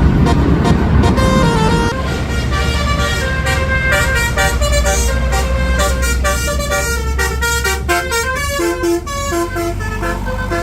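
Multi-tone telolet bus horn (Basuri type) playing a quick, stepping melody of short notes over the low rumble of a bus engine.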